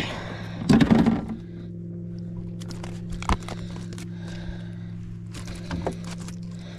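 A striped bass splashing and being handled on a kayak as it is landed: a loud splash about a second in, then a couple of sharp knocks. A steady low hum runs underneath.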